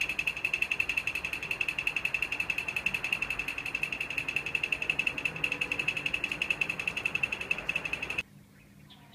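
A fast, even roll of stick strokes on a small, high-pitched drum, played by a seated musician with two sticks; it stops abruptly near the end.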